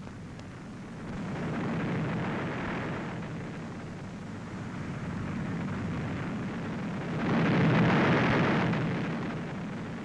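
Rumble and crash of a bomb-damaged brick wall collapsing into rubble as it is pulled down in demolition. The noise swells about a second in and is loudest around seven to eight seconds in. It is heard through an old optical film soundtrack.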